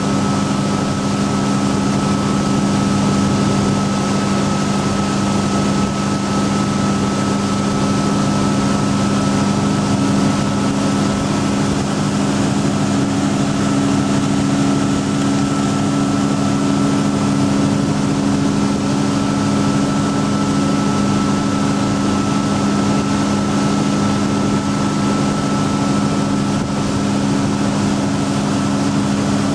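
Tow boat's engine running at a constant speed while pulling a slalom waterskier: a steady drone with a faint steady whine above it, over the rush of the wake.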